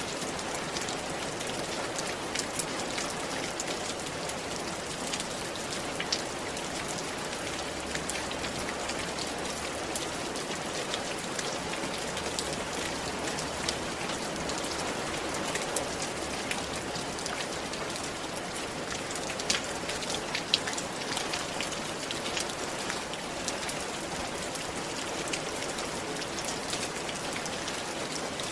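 Steady rain falling on a roof, an even hiss with many individual drops ticking sharply on the surface, a few louder drop hits around twenty seconds in.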